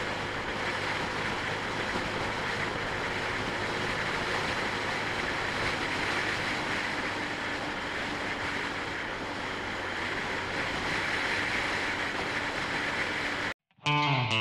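Steady wind rush over the camera microphone while riding a Sinnis Shuttle scooter, with the scooter's engine running faintly underneath. Near the end it cuts off sharply and rock music with guitar and drums starts.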